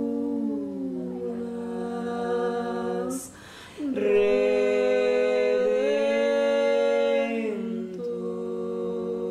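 Two women singing a slow unaccompanied song in long held notes, with a breath about three seconds in; the singing is louder for a few seconds after the breath.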